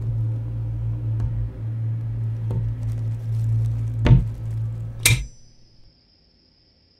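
Film sound design: a low, steady, ominous hum with a few faint knocks, then two sharp clicks about a second apart. After the second click, a light switch being flicked on, the hum cuts off, leaving only a steady high trill like crickets.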